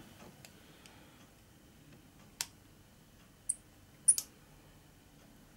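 Small precision screwdriver working a tiny screw into a plastic model-kit part: a few sharp, light clicks about a second apart, one of them doubled.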